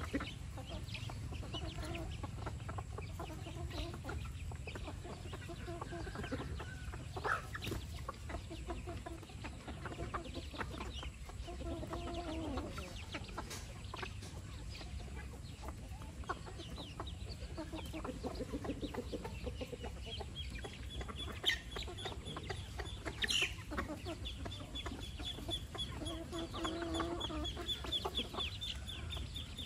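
A flock of chickens clucking steadily while pecking for food. Past the middle a thin, rapid high trill sets in and keeps going, with two sharp clicks among it.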